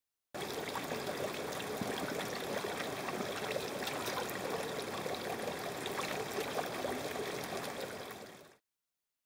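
Spring water trickling over a mossy lip into a small rock pool, a steady trickle and splash. It starts suddenly just after the beginning and cuts off quickly near the end.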